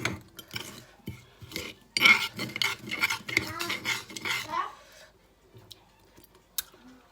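Kitchen utensils clinking and scraping against a bowl while mixing a salad dressing, many quick clinks in a busy run from about two to five seconds in, then only a few sparse clicks.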